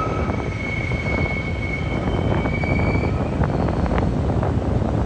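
Container wagons of a freight train rolling past with a steady low rumble. High steady wheel squeal dies away about three seconds in, and a few sharp clicks follow.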